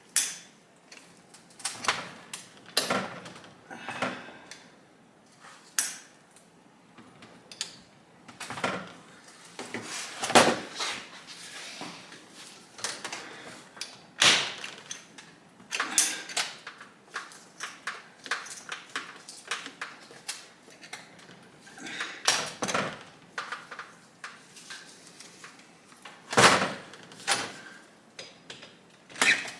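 Irregular metallic clicks and clunks of a 1971 Honda SL125 engine's gearbox being worked by hand: the gear shifter is moved and the sprocket turned. The knocks come unevenly, a few seconds apart, some ringing briefly.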